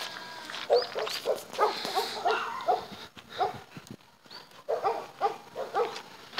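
A dog barking: a run of short barks, a pause of about a second, then another run.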